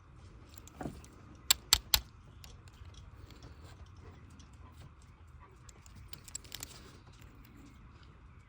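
Three sharp clicks about a quarter second apart, then a few lighter clicks and rattles of small metal hand tools being handled, such as a spark plug gap tool.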